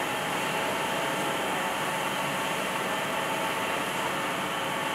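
Steady machinery noise: an even hiss with a faint hum running through it, unchanging throughout.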